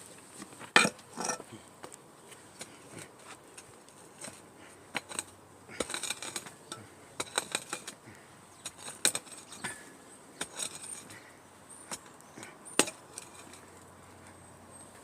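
A metal digging tool cutting into soil to dig a shallow trench, with irregular scrapes and sharp clinks, the sharpest about a second in and again near the end.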